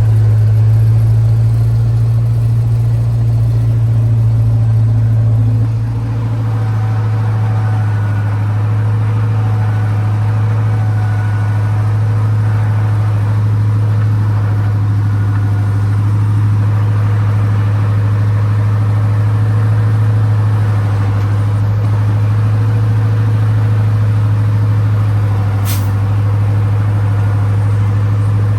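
Logging truck's diesel engine running with a steady, unchanging low drone, with a single short click near the end.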